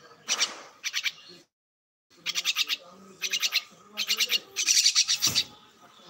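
Myna calling: short trains of rapid, harsh clicking notes repeated again and again, with a louder, rougher call about five seconds in. The sound cuts out completely for about half a second near the start.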